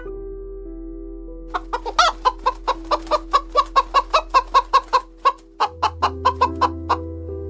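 Chicken clucking in a fast, even run of short clucks, about five a second, starting about a second and a half in, with a brief break near the end. Background music with held tones plays throughout.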